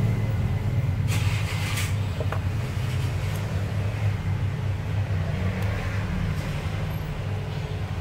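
Steady low hum, with a short scraping rustle about a second in and a faint click just after, as the insulation is stripped off a thin cable's wires by hand.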